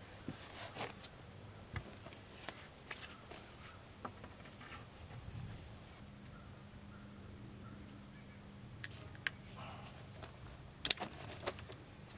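Hand work with tie wire and tools at a plywood bending form: scattered light clicks and knocks, with a quick cluster of sharp metallic clicks near the end.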